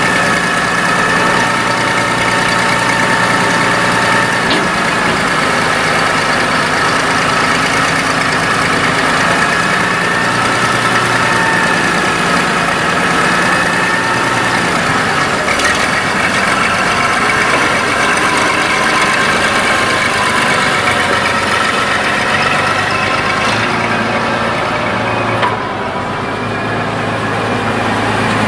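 Case IH 5.9-litre six-cylinder diesel engine of a Case IH Maxxum 5130 tractor running steadily while its front loader works and the tractor moves off, with a brief dip in level near the end.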